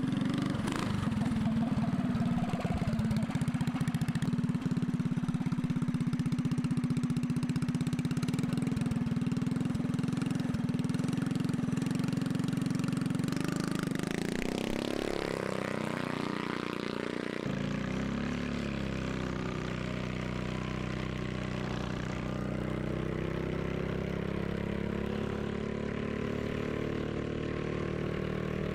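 Pro stock trike's engine running steadily at first, then revving up in a rising pitch about fourteen seconds in. After a sudden change about three seconds later, it climbs in pitch again as the trike gathers speed.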